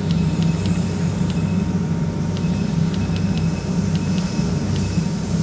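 Jewelry laser welding machine running with a steady low hum, with a dozen or so short, irregular light clicks over it as setting buttons are pressed.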